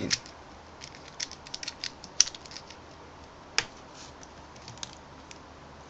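Plastic speedcubes being handled and set down: scattered light clicks and taps, with two sharper knocks about two and three and a half seconds in.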